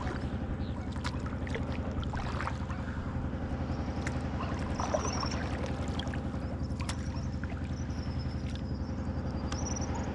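A motor runs steadily and evenly underneath, with light water splashes and drips from a kayak paddle dipping in the water.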